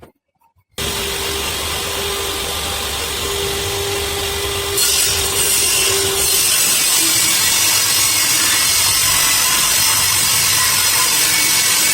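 Electric woodworking power tool running and cutting wood, starting abruptly about a second in, with a steady motor hum under the noise of the cut; the cutting gets louder and harsher about five seconds in as the blade bites deeper into the wood.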